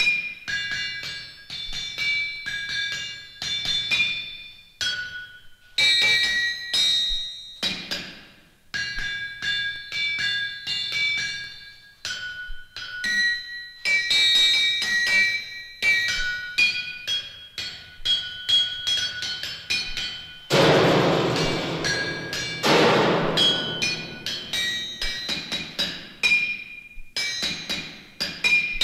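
Hammers striking anvils in quick, irregular succession, each blow leaving a ringing metallic tone, the tones at several different pitches. About twenty seconds in, a loud rushing noise lasts a couple of seconds.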